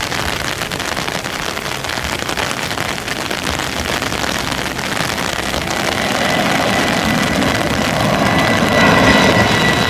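Jet engines of a Citilink Airbus A320 on final approach, a steady rushing sound that grows louder as the airliner comes in to land, with a thin high engine whine rising out of it over the last few seconds.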